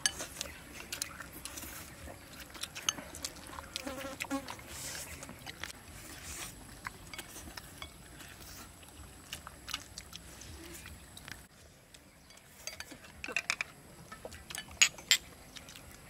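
Eating noises: chopsticks clicking against ceramic bowls and plates, with noodles being slurped. Near the end come a cluster of sharper, louder clinks of tableware.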